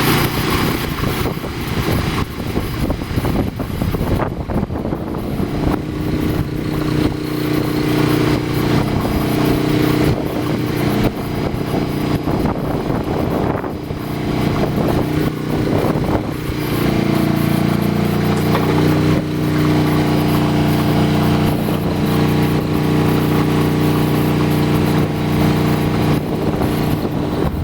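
Kohler gasoline marine generator running steadily under test, its note sagging briefly about 17 seconds in and then settling as electrical load is switched on or off.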